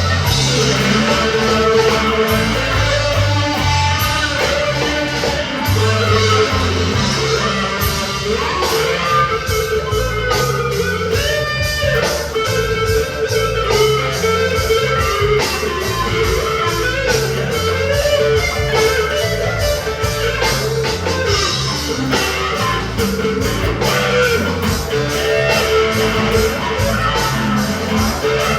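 Electric guitar, a Squier Stratocaster through a Big Muff fuzz pedal and reverb into a Fender Champion 20 amp, playing an improvised lead with long held and bending notes.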